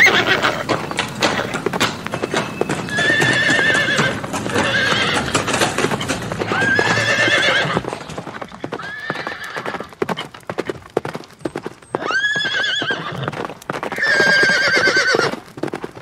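Horses whinnying about six times, each a shaking, wavering neigh about a second long, over a steady run of galloping hoofbeats.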